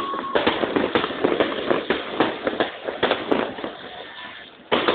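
Aerial fireworks display: rapid, overlapping bangs and crackling pops. They thin out and fade toward the end, then turn loud again just before the end.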